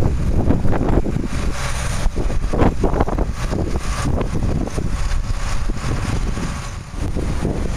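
Wind buffeting the microphone over a low, uneven rumble of running farm machinery.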